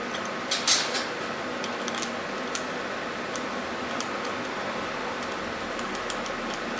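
Steady fan-like hum with a short cluster of sharp metallic clicks about half a second to a second in, then a few lighter ticks: small plasma torch parts being handled while a new nozzle is fitted.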